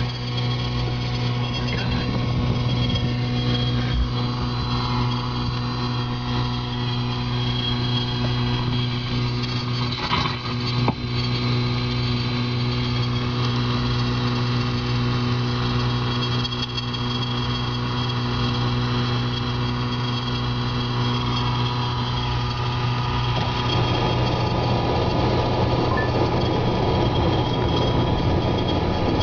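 A vehicle engine idling steadily, heard from inside the car. About three-quarters of the way through, a hiss comes in over the hum.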